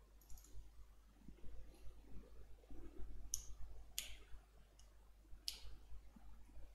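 Faint computer mouse clicks, about six sharp taps spread unevenly, the loudest about four seconds in, over a low steady hum.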